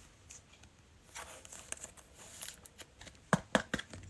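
Trading cards being handled, with light rustling and small clicks, then three quick sharp taps a little over three seconds in.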